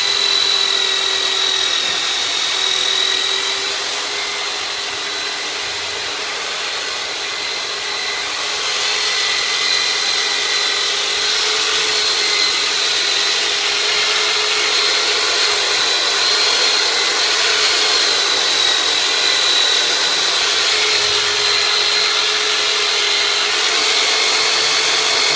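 Large electric massager (the "turbonator") running with a steady motor whine over a hiss, its pitch wavering slightly, used for myofascial release. It is a little quieter for a few seconds about four seconds in.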